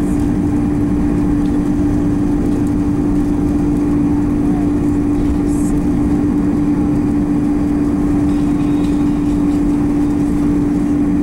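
Jet airliner landing rollout heard inside the cabin: a steady low rumble of engines and wheels on the runway, with a constant hum over it.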